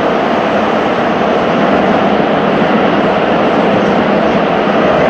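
Running noise of a Tobu 9050 series train between stations in the subway tunnel, heard from inside the car: a loud, steady rumble of wheels on rail.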